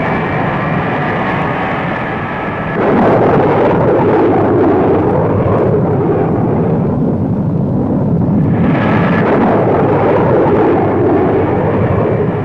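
Jet aircraft engines roaring, growing suddenly louder about three seconds in and easing briefly in the higher range near the middle.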